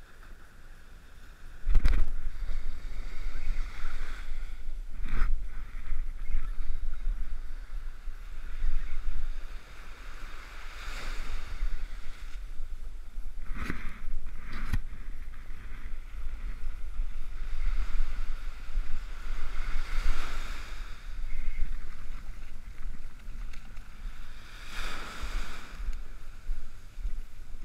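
Small ocean surf washing onto the beach in slow swells, under a steady rumble of wind on the microphone. A few sharp knocks from the camera or rod being handled come about two, five and fourteen seconds in.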